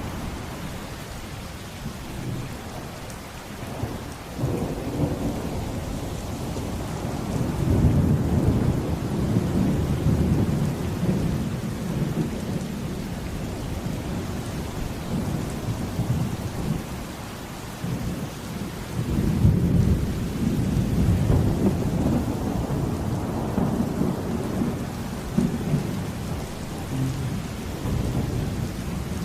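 Steady heavy rain with deep rolling thunder that swells up several times, loudest about eight seconds in and again around twenty seconds.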